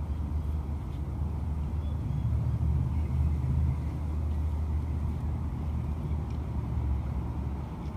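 Low, steady rumbling noise, a little louder about three seconds in.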